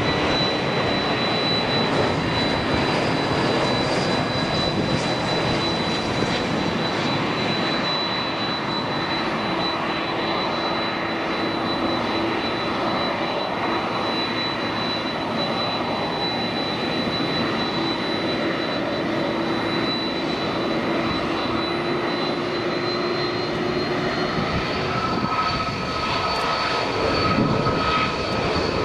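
Jet engines of an Airbus A321-200 on final approach and landing: a steady jet rush with a high, thin whine over a lower hum. About 25 seconds in, the sound changes to another airliner's engines, an Airbus A330 on the runway, with whines at different pitches.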